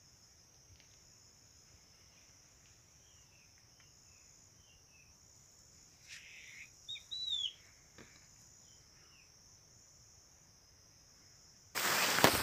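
Steady high-pitched insect drone from crickets or cicadas in the forest, with a few faint bird chirps and a short louder run of bird calls about halfway through. Near the end a sudden loud rustling noise breaks in.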